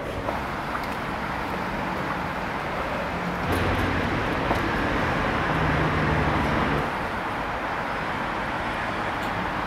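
Urban street traffic noise, a steady rumble and hiss of distant road traffic. It swells for about three seconds midway, with a low engine hum as a vehicle goes by nearer.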